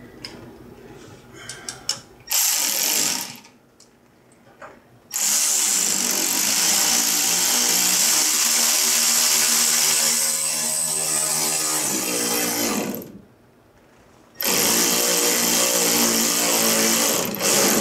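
A handheld power tool run in three bursts, a short one, a long one of about seven seconds and a last one of about three seconds, each with a steady motor pitch and a loud hiss. It is being used on the hose couplers of an aluminium upper radiator pipe.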